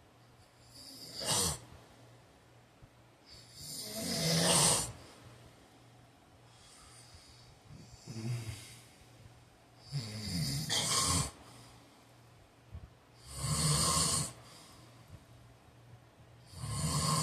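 A man snoring loudly in his sleep: six snores spaced about three seconds apart, the one around eight seconds in fainter than the rest.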